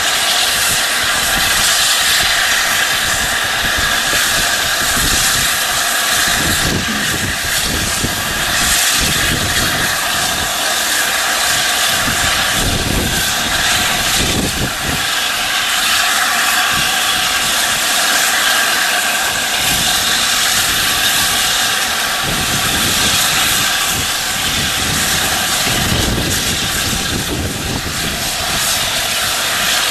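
Steam locomotive 60019 Bittern, an LNER A4 Pacific, standing with a loud, steady hiss of escaping steam. Irregular low rumbles come and go underneath.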